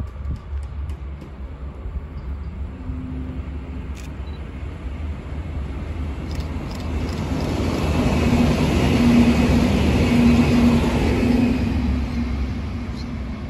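V/Line VLocity diesel railcar set passing on the near track, its engine hum and wheels on rail building to a peak about nine to eleven seconds in and then fading. A steady low rumble sits underneath.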